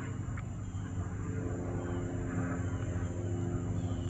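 Single-engine propeller light aircraft flying overhead, its engine drone growing slightly louder toward the end.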